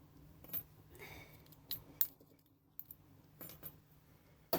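Small pieces of scrap brass clinking as they are handled and dropped, a handful of short metallic clicks with the loudest near the end.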